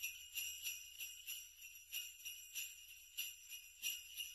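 Sleigh bells jingling softly in a steady shaking rhythm, about three shakes a second.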